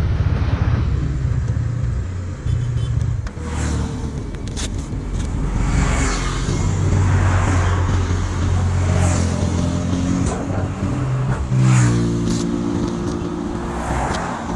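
Motor vehicle engines running, a steady low hum whose pitch shifts in steps several times, with vehicles passing on the highway.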